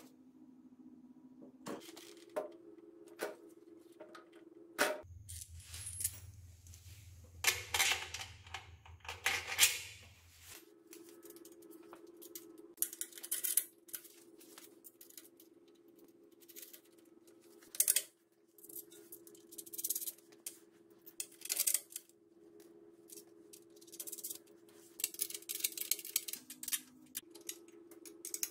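Metal parts and hand tools clinking, knocking and rattling during assembly work, in many short irregular clicks. A low steady hum runs underneath for about five seconds near the start.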